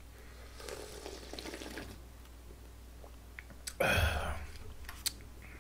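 Slurping jjamppong broth straight from the bowl. About four seconds in there is a louder thump as the bowl goes back down on the table.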